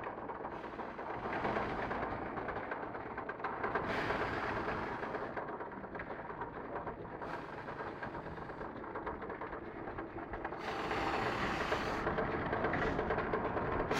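Muller Martini DS 240 three-knife book trimmer running: a continuous mechanical clatter from its feeder and drive that swells louder several times.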